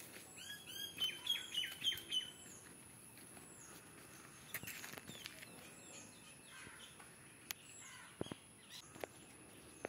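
Small birds chirping: a quick run of short, high chirps about a second in, then fainter scattered calls and a few sharp clicks.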